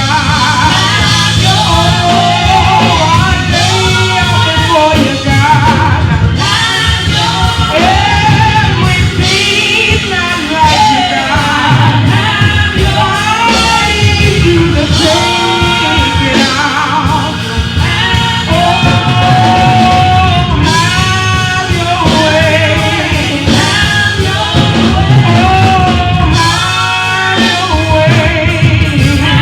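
Loud live congregational worship music: voices singing over a band with a steady beat, guitar and bass.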